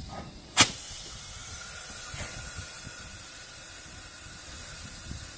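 GWR Manor Class steam locomotive standing at the platform, letting off steam with a steady high hiss. The hiss sets in abruptly just after a sharp click about half a second in.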